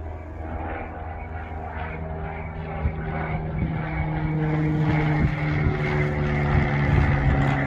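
Small single-engine propeller plane flying overhead, its steady engine drone growing louder as it comes closer.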